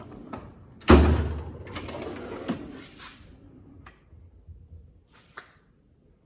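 Steel ICON tool chest drawers sliding and shutting: one shuts with a loud bang about a second in, then a sliding rattle follows, with a few small clicks near the end.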